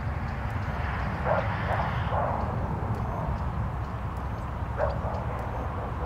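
Open farmland ambience: a steady low rumble with a few short, distant animal calls, a cluster about one to two seconds in and another near five seconds.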